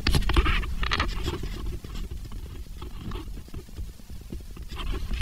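Camera handling noise: a low rumble with scraping and rubbing as the camera is picked up and moved close to the engine.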